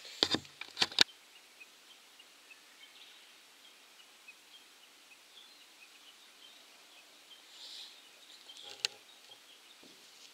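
Quiet outdoor ambience with a quick cluster of sharp clicks in the first second and a single sharp click near the end, and faint high ticks scattered in between.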